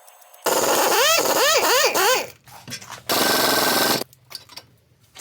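Impact wrench hammering in two bursts. The first is four quick pulses with the motor pitch rising and falling each time, and the second is a steady run of about a second.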